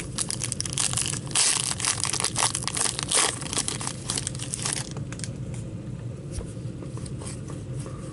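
Foil trading-card pack wrapper being torn open and crinkled by hand for about the first five seconds, then quieter light rustles and clicks as the cards are handled.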